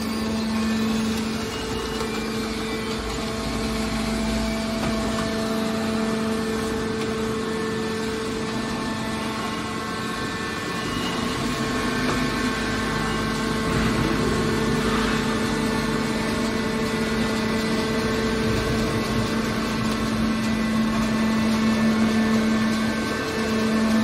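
Hydraulic power unit of a scrap metal baler running: a steady machine hum from its electric motor and pump.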